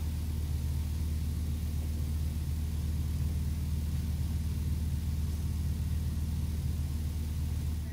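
A steady low hum, like a motor or fan running, with no clicks or knocks.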